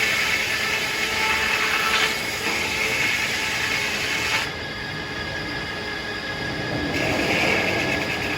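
Circular sawmill blade cutting a tulip poplar log, with a steady high whine underneath. The heavier cutting noise drops off about four and a half seconds in and picks up again near the end.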